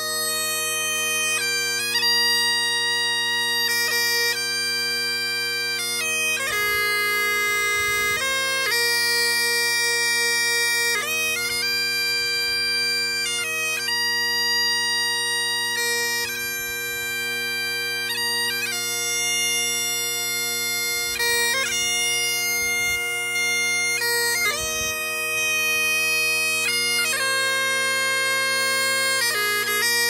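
Highland bagpipes playing a slow melody of long held notes over the steady drones.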